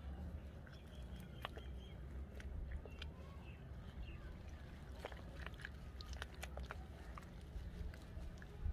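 Hands swishing and squelching a flower seedlings' root ball in a basin of muddy water, washing the soil off the roots. The water makes small splashes and wet clicks over a steady low rumble.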